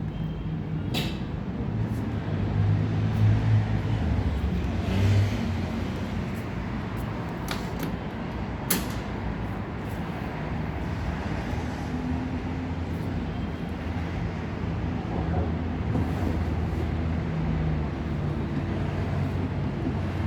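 Steady low engine hum of vehicles in a car service workshop, with a few sharp clicks, the clearest about a second in and about nine seconds in.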